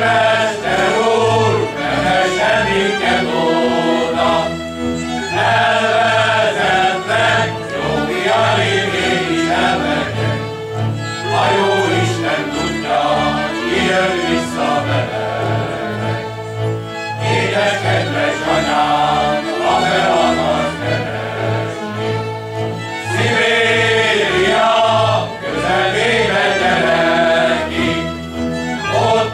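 Men's folk choir singing a Hungarian folk song in phrases with short breaks, accompanied by fiddles and a double bass.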